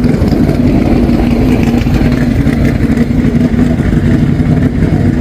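Speedway race car engines running loud and steady at high revs, a continuous drone with a held pitch.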